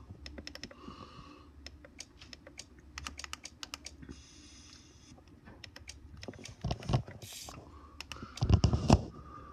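Laptop touchpad buttons clicking in quick, irregular runs of light clicks. A few louder low thumps come near the end.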